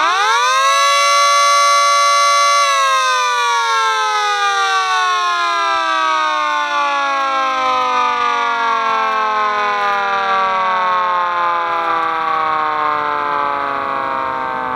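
Miniature model of a Federal Signal 2T22A two-tone siren sounding a short alert: having just wound up to full pitch, it holds a steady two-note chord for about two and a half seconds, then is shut off and winds down slowly, its pitch falling steadily.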